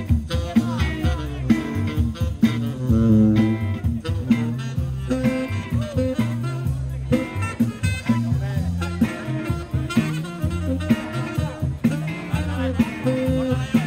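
Live band playing: a saxophone carries a moving melody over an electric bass line and a drum kit keeping a steady beat.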